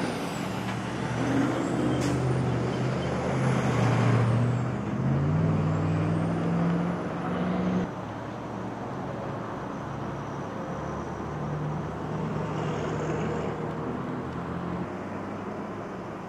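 Highway traffic passing close by: a heavy vehicle's engine is loud through the first half and drops off abruptly about eight seconds in, leaving a steadier, quieter traffic roar.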